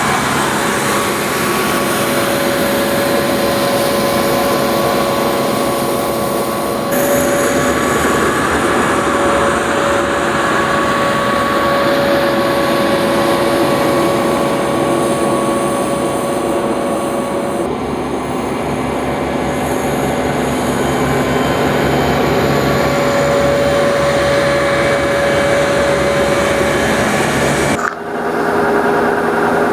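Combine harvester running steadily while harvesting wheat, a constant mechanical drone with a steady whine over it. The sound changes abruptly near the end.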